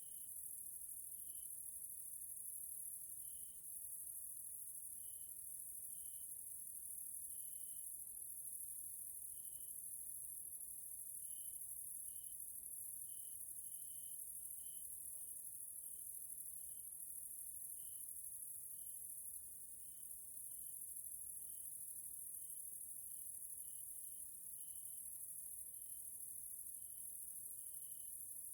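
Evening chorus of stridulating grasshoppers: a steady, high-pitched insect hiss, with short chirps at a lower pitch repeating irregularly about once or twice a second.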